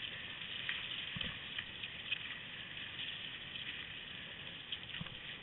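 Skis sliding over snow with a dog team trotting ahead: a steady hiss with scattered small crunches.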